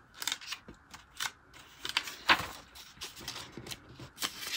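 Paper pages of a thin booklet being turned by hand: a string of short rustles and flips.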